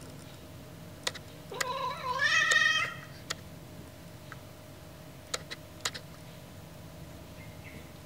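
A domestic cat gives one drawn-out whine, about a second and a half into the clip and lasting a little over a second: her protest at having her ears cleaned. A few sharp clicks come before and after it.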